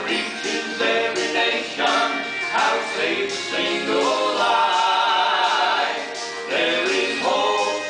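Southern gospel vocal group singing in close harmony, with a long chord held in the middle.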